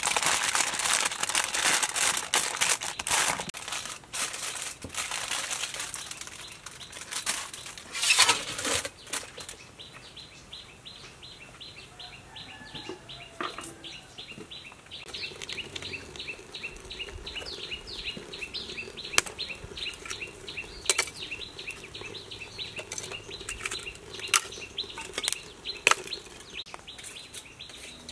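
Aluminium foil crinkling and rustling as hands fold and crimp it around a fish, for about the first nine seconds. After that, quieter outdoor sound: birds chirping in fast, repeated short notes, with occasional sharp clicks.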